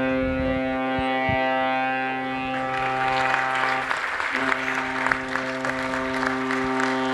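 A ship's horn sounding a long, steady blast that breaks off for a moment about four seconds in and then sounds again. From about three seconds in, an audience applauds over it.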